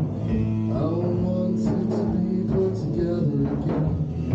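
A live psychedelic rock jam by a power trio: electric guitar, bass and drums, with a man singing.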